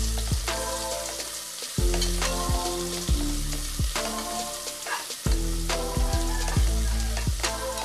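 Sliced onions sizzling in hot ghee in an aluminium pressure cooker, stirred with a steel ladle that clicks and scrapes against the pot. Background music runs underneath, with a low note coming back every few seconds.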